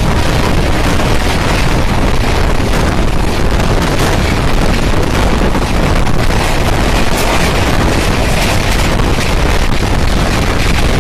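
Steady loud rush of a passenger train's coaches going past close alongside at speed, heard from the open door of a moving train, with heavy wind buffeting the microphone.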